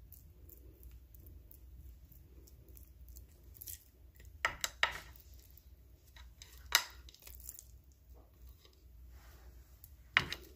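Raw lamb chops handled on a ceramic plate: a few light clicks and knocks as chops and their bones are turned over and set down on the plate, two close together about halfway through, one more a couple of seconds later and one near the end, over a low steady hum.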